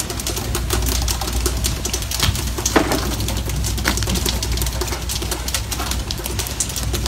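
Freshly caught skipjack tuna flapping and thudding on a wooden boat deck in a rapid patter of knocks, over a steady low rumble.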